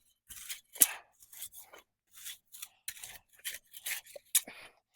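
A hand tool digging and scraping through soil, in short crunching strokes a few times a second.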